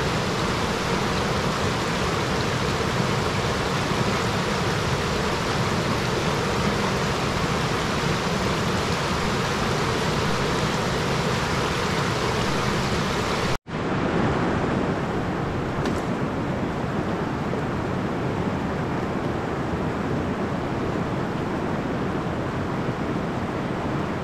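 Steady rushing of river water over rocks. About halfway through the sound cuts out for an instant, then comes back duller.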